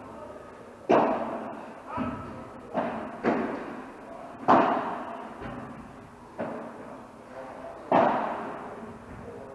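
Padel rally: the ball is struck by rackets and bounces off the court surfaces, giving about eight sharp pops at uneven intervals of roughly a second, each with an echoing tail.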